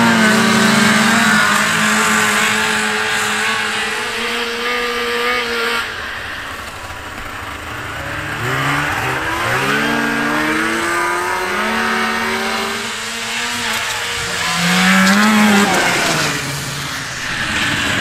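Vintage two-stroke snowmobile engines, one of them a Yamaha Enticer, revving hard in a side-by-side drag race. The engine pitch holds high as the sleds launch and run away, then climbs again several more times, with one short rise near the end.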